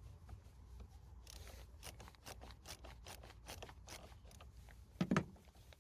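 Hand tool working the car battery's terminal clamp loose: a run of quick, even, faint clicks for a few seconds, then a single louder knock about five seconds in.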